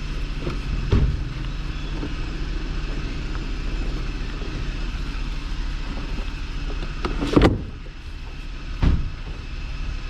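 Sharp clunks and knocks from handling the battery and its hardware under a car's hood, three distinct ones, the loudest about seven seconds in, over a steady low hum.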